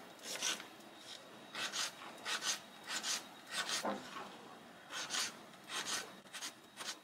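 Kitchen knife slicing radishes thinly on a bamboo cutting board: a run of short chopping taps at an uneven pace, many coming in quick pairs.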